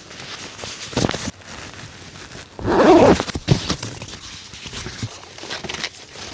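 Gear being handled and unpacked: rustling and knocking, with one louder, brief voice-like sound about three seconds in.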